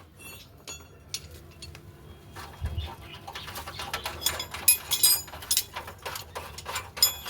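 Light metallic clinks and taps as a motorcycle chain cover and its small metal fittings are handled and fitted, with one dull thump about two and a half seconds in.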